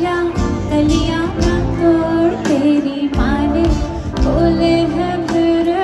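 Live pop music: a woman singing a held, wavering melody over a bass-heavy backing.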